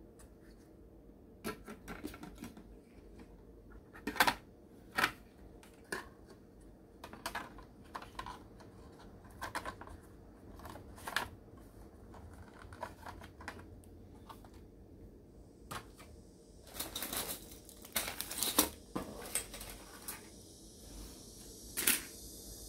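Hard plastic model-kit parts clicking and knocking together as they are handled and dry-fitted, in scattered sharp taps at irregular intervals, with a quick cluster of them a little after the middle.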